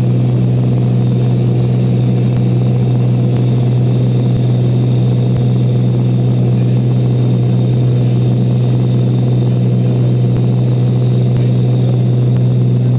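Cockpit cabin noise of a Cirrus SR22T in flight: the turbocharged six-cylinder Continental engine and propeller droning steadily at a constant pitch.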